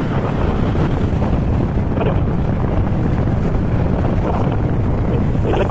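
Steady rush of wind buffeting the microphone of a camera carried on a moving Honda ADV160 scooter.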